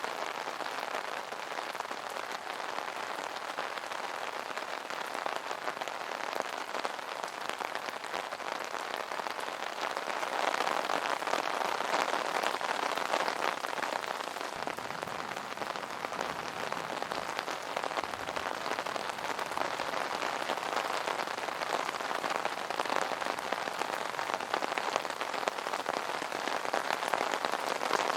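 Rain falling on an umbrella: a steady patter of many drops hitting the fabric canopy, getting a little heavier about ten seconds in.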